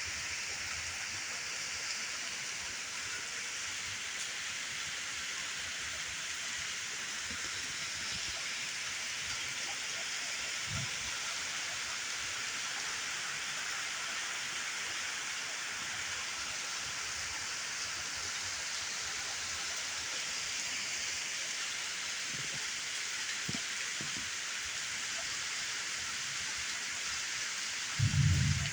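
Steady rain falling, an even hiss with no break. A short, loud, low thump comes near the end.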